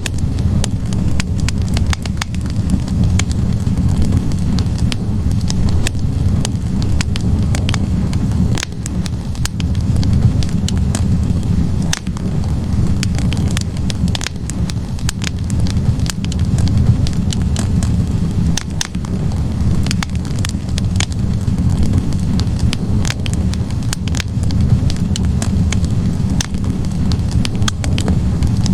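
Wood logs burning in a fireplace: a steady low rumble of flames with frequent sharp crackles and pops from the burning wood.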